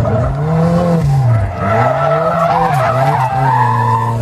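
Race buggy's engine being driven hard through corners, its pitch dropping and climbing again several times as the driver lifts and gets back on the throttle, with tyres squealing on the tarmac in the second half.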